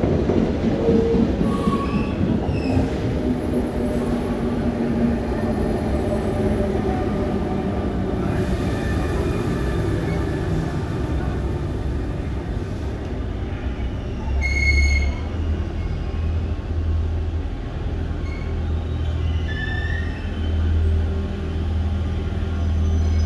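Double-deck RER C commuter train running into an underground station and braking to a stop, with a steady rumble and thin wheel squeal over the first few seconds. Then a low steady hum.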